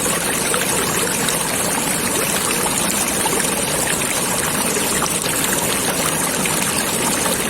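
Flowing stream water, a steady babbling trickle.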